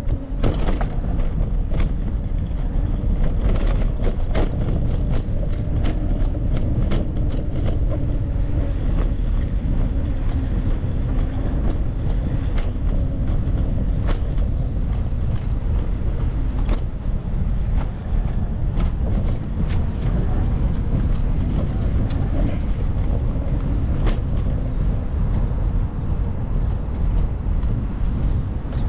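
Bicycle ride noise: a steady low rumble of wind and road noise on the moving camera's microphone, with frequent small clicks and rattles from the bike.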